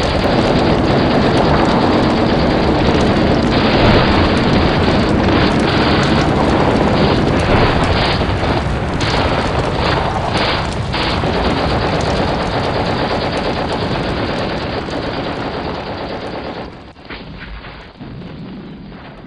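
Battle sound effects: a dense din of explosions and machine-gun fire, fading out over the last few seconds.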